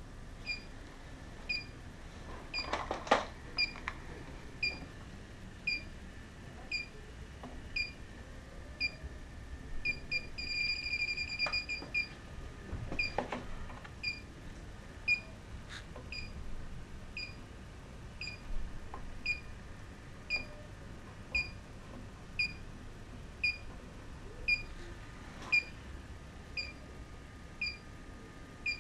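Electronic refrigerant leak detector (Inficon D-TEK Select) beeping about once a second. Near the middle the beeps speed up into a fast run for about a second and a half, the detector's sign that it is sensing refrigerant. Two knocks are heard, about 3 seconds in and near the middle.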